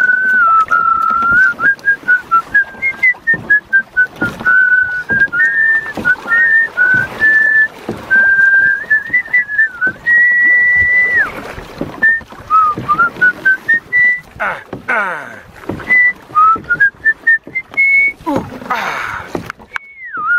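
A man whistling a tune, the notes stepping and sliding up and down. Twice in the last third a loud rush of noise breaks over it.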